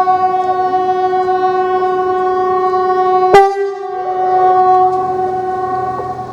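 Kockums Supertyfon TA 75/380 pneumatic warning horn blowing a steady 380 Hz tone. About three seconds in a sharp crack breaks into the blast and the tone wavers before carrying on, then it weakens near the end. This is a failing installation that the uploader suspects has a bad valve or relay.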